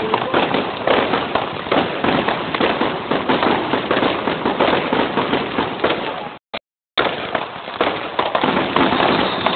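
Fireworks going off close by in a dense, continuous barrage of rapid cracks and bangs. The sound cuts out entirely for about half a second about two-thirds of the way through.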